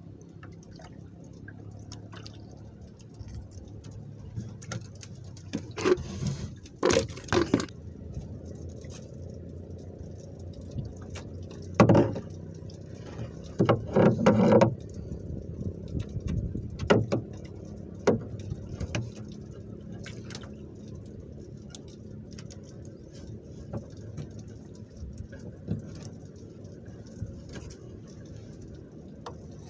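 Handling fishing gear in a small wooden boat: a few sharp knocks and clattering rattles, loudest about 12 and 14 seconds in, over a steady low rumble.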